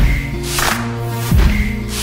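Soundtrack music with a slow, heavy beat: a deep drum hit about every second and a half with a sharp snare-like hit between them, over held electronic tones.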